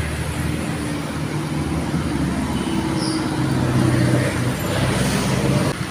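Roadside traffic noise: engines of passing cars and motorcycles running, with a steady low engine drone that gets a little louder about four seconds in.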